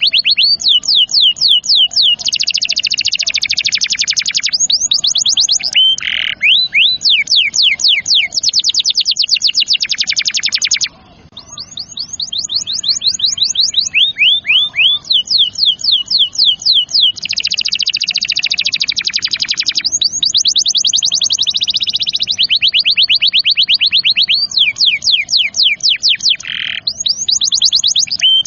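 Domestic canary singing a continuous song of fast rolling trills, each made of rapidly repeated high notes, switching from one trill to the next every second or two, with a short break about eleven seconds in.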